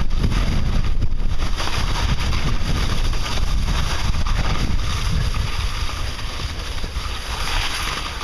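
Wind buffeting the microphone and skis sliding over soft spring snow on a downhill run, a steady rumble with a scraping hiss that eases off over the last couple of seconds as the skis slow.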